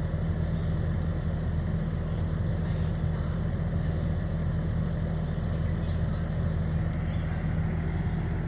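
Skid steer loader engine running at a steady, even speed with a constant low hum.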